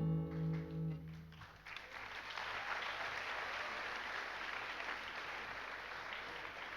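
The last guitar chord of a song rings out and fades within the first second and a half, then an audience applauds steadily.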